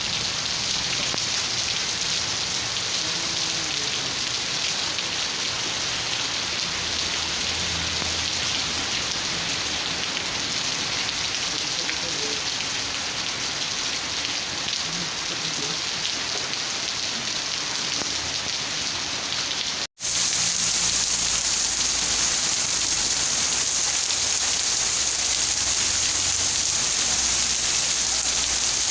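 Steady rain falling, an even unbroken hiss. About twenty seconds in it cuts out for a split second, then comes back slightly louder and brighter.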